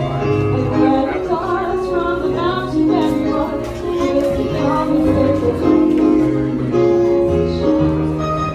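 A song: a singing voice over instrumental accompaniment with a bass line that holds each note for about a second.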